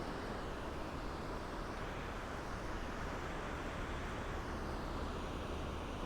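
Ocean waves washing onto a sandy beach: a steady rushing wash with a deep rumble underneath.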